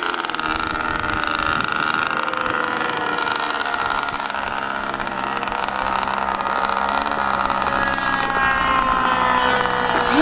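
Model airplane's nitro glow engine running at idle, a steady high-pitched drone, with a few rising tones near the end.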